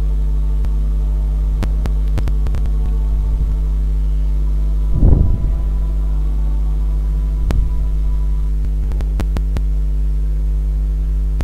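Steady electrical mains hum with a buzzy stack of even overtones, scattered faint clicks, and one short low thump about five seconds in.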